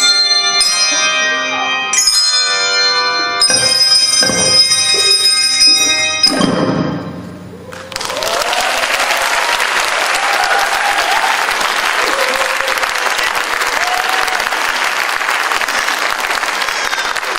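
Handbell ensemble ringing its closing chords, a few struck chords and then a last one that dies away. From about eight seconds in the audience applauds steadily.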